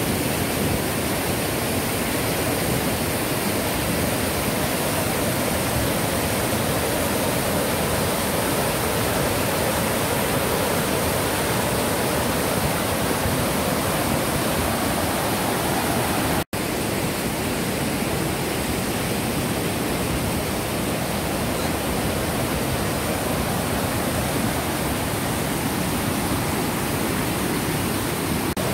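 White-water rapids of a rocky mountain river rushing over boulders: a steady, even rush of water, broken by a momentary gap a little over halfway through.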